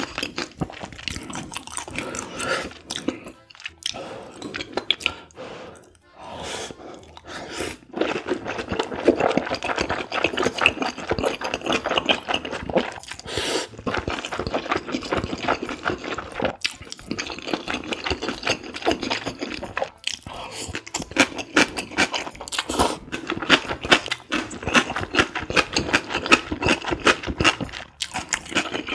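Close-miked slurping and chewing of soupy kalguksu noodles: a dense, continuous run of wet mouth smacks and slurps, with a short lull about four to six seconds in.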